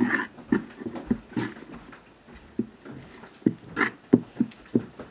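Spoon stirring sticky glue slime in a plastic bowl: an irregular run of short wet squelches and clicks, the loudest near the end.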